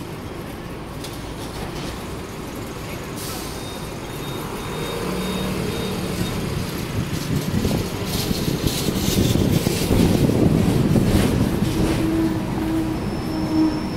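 Hong Kong double-decker electric tram pulling away from a stop and gathering speed, heard from inside. The rumble of steel wheels on the rails and the running gear grows steadily louder, with a short hiss about three seconds in.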